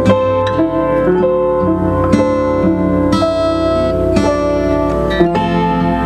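Instrumental music: a run of plucked string notes, each struck and then fading, over a steady low bass.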